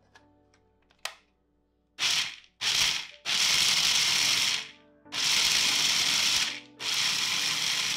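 Small electric food processor chopping whole shelled pistachios, run in five pulses: two short ones, then three of a second or more each, with the nuts rattling against the bowl. This gives a coarse chop. A few clicks come first as the lid is fitted.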